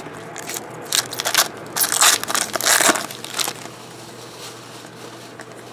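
Foil trading-card pack wrappers crinkling and being torn open by hand, in a run of sharp crackly bursts that die down after about three and a half seconds, with a faint steady low hum underneath.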